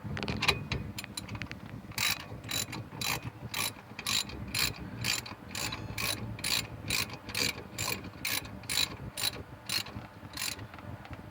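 Ratchet wrench clicking in an even rhythm, about two clicks a second, as bolts are tightened back down.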